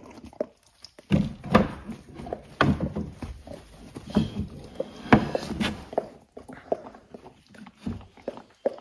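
A dog in labour shifting and turning in a whelping pen: paws scrabbling and knocking on the floor and its wooden frame. Near the end come quick rhythmic breaths, about three a second, as she settles.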